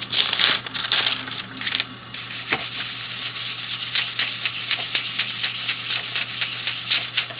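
A wad of cloth scrubbed over an inked copper printing plate, wiping off surplus ink in quick, repeated rubbing strokes.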